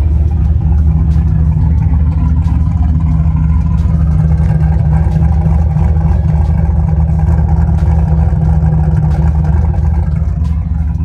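Turbocharged LS V8 swapped into a BMW E36 idling steadily with its electric exhaust cutout open, so the exhaust leaves through the open 3.5-inch cutout under the car rather than the muffler and tailpipe: a loud, deep, even rumble.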